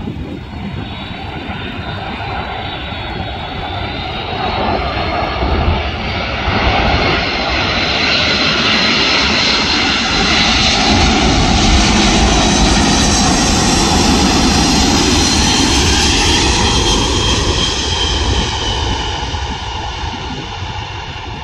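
USAF C-17 Globemaster III's four Pratt & Whitney F117 turbofans on final approach: jet engine noise with a high whine that builds as the aircraft passes low and close. It is loudest a little past halfway, and then the whine drops in pitch and the noise fades as the aircraft lands on the runway.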